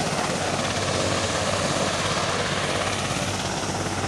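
Helicopter running steadily nearby, a constant rotor and engine noise that neither rises nor falls.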